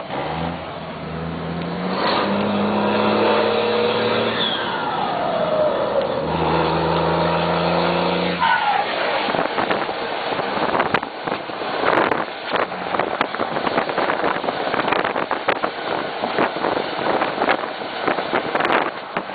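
Volkswagen Constellation truck's diesel engine running hard at a steady pitch, with a falling whine partway through. About eight seconds in, the engine note gives way to a loud, rough rushing noise with rapid flutter.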